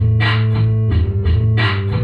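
Live funk band playing: bass guitar holding low notes and guitar over a drum-kit beat, with about three drum hits a second.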